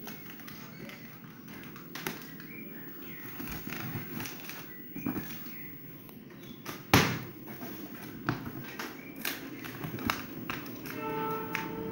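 Scissors snipping through packing tape on a cardboard box, with cardboard flaps being pulled open and scattered light taps and rustles; a sharp knock about seven seconds in is the loudest sound.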